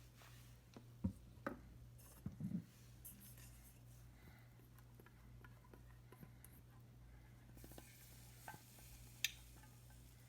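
Faint, scattered taps and scrapes of a utensil stirring shredded chicken warming in a pan, a few sharper clicks about a second in and again near the end, over a steady low hum.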